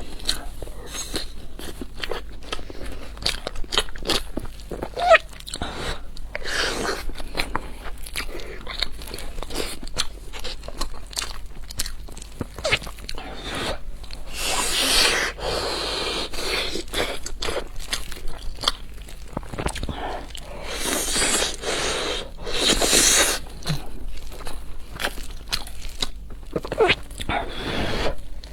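Close-up eating sounds: a person biting, chewing and crunching food, with many small mouth clicks and several longer, louder stretches.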